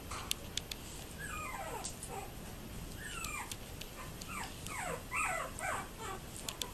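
Yorkiepoo puppies whimpering and yipping as they play-wrestle: a string of short, high cries, each falling in pitch, coming one after another.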